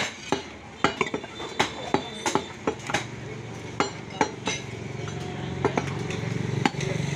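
Butcher's heavy cleaver chopping beef on a wooden log chopping block: irregular sharp chops, two or three a second, with metallic clinks of the blade. A low steady hum sets in about three seconds in and grows louder.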